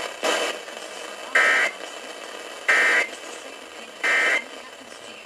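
Emergency Alert System end-of-message (EOM) data tones: three short, shrill digital bursts about a second and a half apart over a steady radio hiss, signalling that the alert message has ended.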